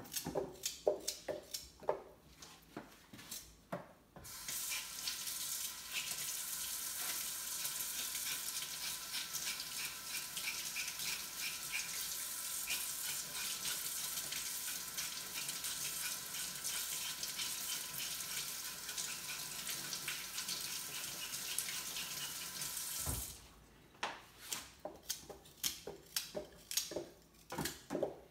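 Kitchen tap running in a steady stream for about twenty seconds, starting about four seconds in. Before and after it come short knocks of a knife cutting carrots on a cutting board.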